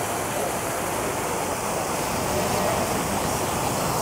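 Fountain jets splashing steadily into a reflecting pool.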